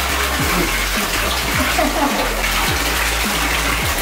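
Bath tap running into a filled bathtub: a steady, unbroken rush of water.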